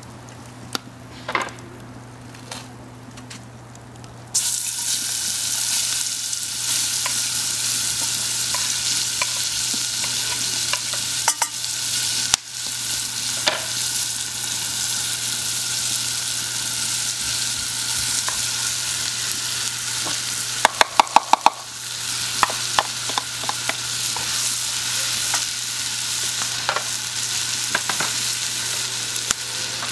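Diced onions going into hot oil in a cast-iron Dutch oven: a loud sizzle starts suddenly about four seconds in and carries on as steady frying. Scattered clicks and a quick run of sharp clicks a little past two-thirds of the way through.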